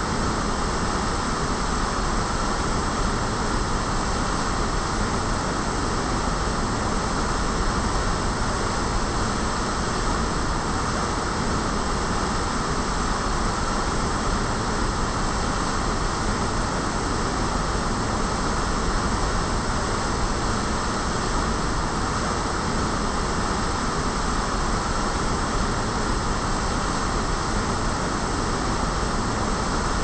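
Water pouring in heavy streams from the concrete tubes of a large sculptural fountain and splashing into its pool: a constant, even rushing.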